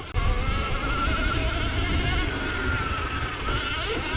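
Surron Ultra Bee electric dirt bike being ridden hard: the electric motor's wavering whine over heavy wind rush on the mic, which comes in suddenly just after the start as the bike pulls away.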